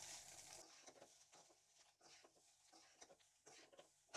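Faint scraping and patter of a slotted metal spatula stirring and turning cooked fried rice in a metal kadai, in irregular short strokes, with one slightly sharper knock near the end.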